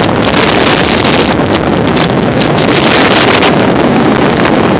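Loud, steady wind rush buffeting the microphone of a camera carried on a moving motor scooter.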